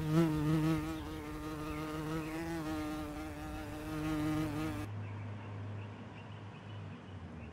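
A small flying insect buzzing close by: a steady, slightly wavering drone that stops about five seconds in, as the insect lands on the cat's nose. A faint low hum remains after it.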